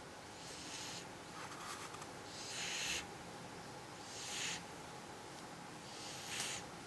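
A domestic cat snoring in its sleep: soft, hissing breaths, one every second or two, the loudest about three seconds in.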